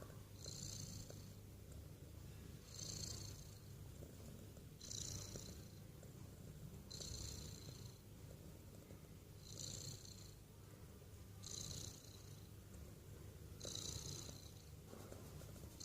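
A cat snoring: a high, whistling wheeze with each breath, about every two seconds and seven times in all, over a low steady rumble.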